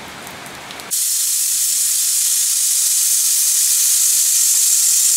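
Rain falling for about a second, then an abrupt cut to a loud, steady sizzle: chicken kabab deep-frying in hot oil.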